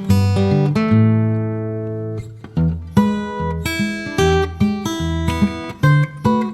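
Background music: acoustic guitar, plucked notes and strummed chords.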